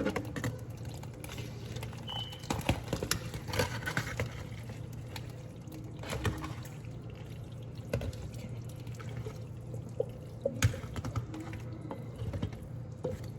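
Cheese sauce being poured and stirred into cooked macaroni: wet sloshing with scattered clicks and knocks against the pan.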